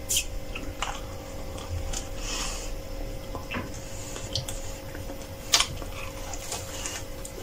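A person biting into and chewing a crispy pan-baked flatbread filled with vegetables: scattered crunches and crackles, the sharpest about five and a half seconds in, over a faint steady hum.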